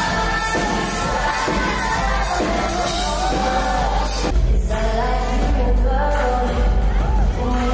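Female pop singer singing live into a microphone over a loud band. The backing breaks off for a moment about four seconds in, then comes back with heavier bass.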